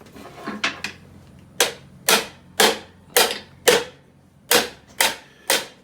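A run of sharp knocks, about two a second, with a brief gap between the fifth and sixth, as the seized hose reel joint is worked loose with a C-spanner.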